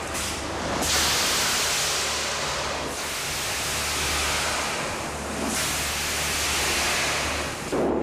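Loud, steady rushing noise with a low hum underneath, changing in character about a second in, at about three seconds and again at about five and a half seconds.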